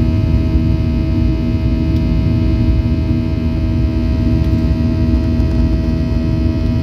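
Jet airliner cabin noise in flight: a steady engine drone with a deep rumble and several steady hums.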